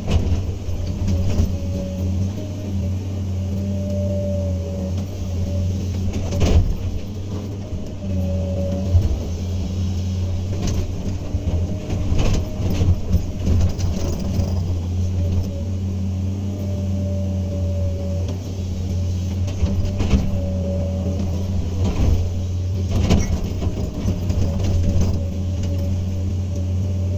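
Komatsu PC200 excavator's diesel engine running steadily under work, with a higher whine that comes and goes every few seconds. Several sharp knocks stand out over the engine.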